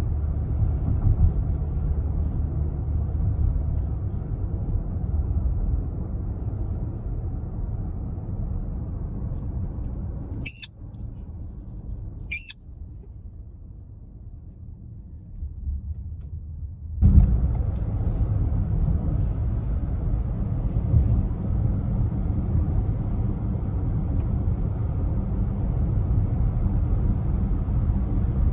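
Steady low road and engine rumble from a moving car, heard from inside the cabin. The rumble drops for several seconds in the middle, and two short, shrill squawks from a sun conure sound about two seconds apart in that quieter stretch.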